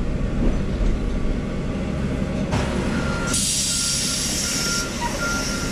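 Viva Blue transit bus at a stop, its engine running with a low rumble; about halfway in, compressed air hisses out loudly for about a second and a half. A short, high warning beep repeats about every two-thirds of a second through the second half.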